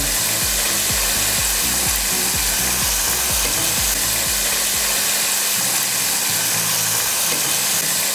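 Hot oil in a deep pot sizzling loudly and steadily as pieces of battered chicken are lowered in to deep-fry.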